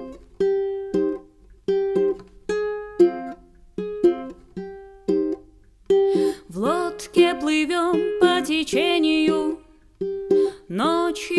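Music: a ukulele picking a repeated chord pattern. About six and a half seconds in, a woman's voice starts singing over it.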